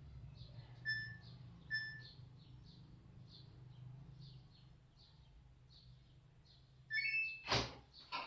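Samsung washing machine control panel: two short beeps as buttons are pressed, then near the end a short rising chime as the spin cycle is started, followed by a sharp click and a second smaller click. A low steady hum runs underneath and fades about halfway through.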